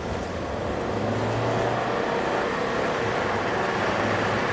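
1.6-litre EcoBoost four-cylinder of a Ford Transit Connect van pulling under acceleration, a steady low engine hum mixed with road and tyre noise, heard from inside the cab and growing slightly louder.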